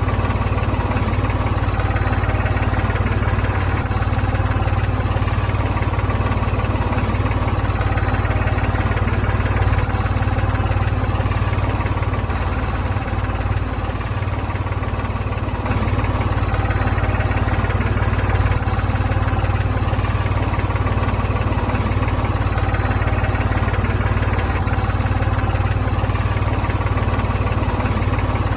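Steady engine drone like an idling tractor, with a strong deep hum and many steady tones above it, holding the same level throughout.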